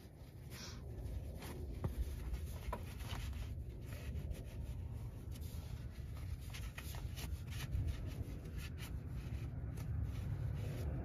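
Small scratching and rubbing sounds, irregular light scrapes, as a hand tool and then a cloth rag work over a cast-iron brake caliper, over a low continuous rumble.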